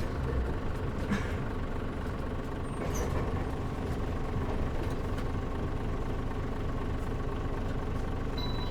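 Mitsubishi Fuso Aero Star low-floor city bus heard from inside the cabin: the diesel engine and drivetrain running with a steady low rumble, and the air conditioning off.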